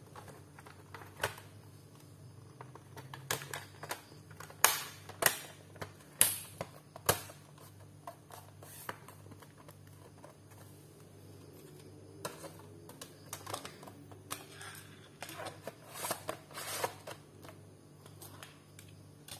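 Irregular sharp plastic clicks and knocks as the bottom cover of a Lenovo IdeaPad laptop is fitted back on and pressed into place, over a low steady hum.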